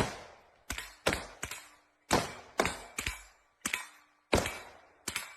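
A string of gunshots at a shooting range, fired at an uneven pace of about two a second, each shot followed by a short echoing tail.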